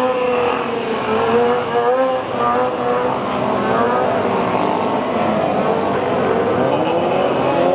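An engine running steadily, its pitch wavering up and down with the revs, with a rise near the end.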